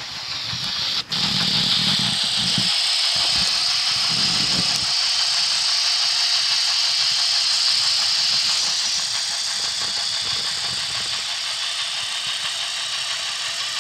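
Sound-equipped N-scale GHQ Northern Pacific W3 Mikado steam locomotive running, its DCC sound decoder playing steam-engine sound with a steady hiss through the model's small speaker. There is a brief dropout about a second in.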